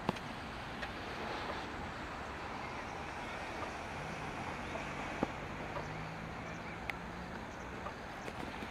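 Steady outdoor background noise, with a faint low hum in the middle and a few short clicks.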